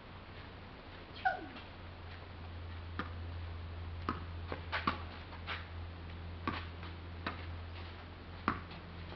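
Tennis rally: a string of sharp ball strikes and bounces, irregularly spaced about a second apart, over a steady low hum. A short falling whine sounds about a second in.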